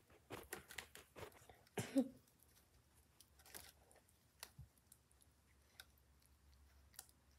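Faint scratching, rustling and clicking from a cat pawing and grabbing at a feather wand toy on a carpeted cat tree. The sounds cluster in the first two seconds, with the loudest knock about two seconds in, then thin out to a few scattered ticks.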